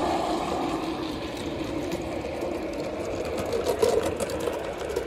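Garden-scale model train, a Thomas the Tank Engine locomotive hauling coaches, running past: a steady whirring of its motor and wheels on the track, easing off slightly, with a few short clicks about three and a half seconds in.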